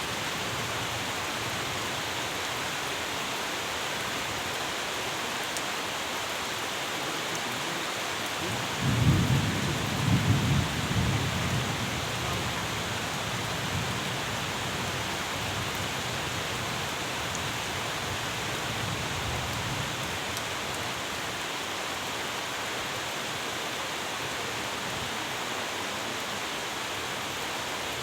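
Steady rain falling, an even hiss throughout, with a low rumble of thunder starting about nine seconds in and dying away over a few seconds.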